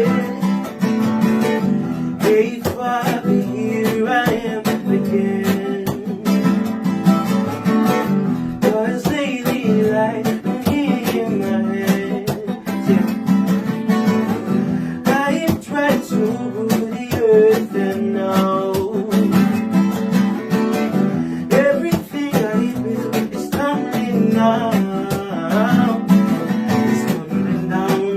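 Music: strummed acoustic guitar with a steady rhythm, with some singing or vocal lines over it.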